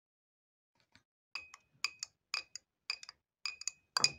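Metal spoon stirring coffee in a cup, clinking against its sides a little over twice a second with a short ringing tone. It starts about a second in.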